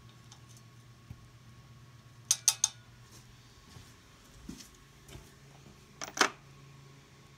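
Metal hand tools clinking against each other: three quick clinks a couple of seconds in and two more near the end, over a faint steady hum.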